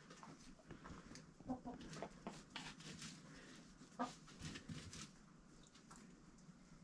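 Chickens clucking quietly, a few short clucks spread out, the clearest about a second and a half and four seconds in, with faint rustling between them.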